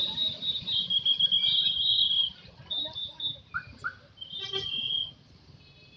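Bus telolet horns playing high held notes that shift between two pitches, then fading; a short horn note sounds about four and a half seconds in.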